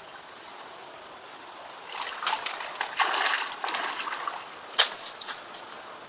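Water splashing irregularly for about two and a half seconds, with a single sharp click or knock a little later.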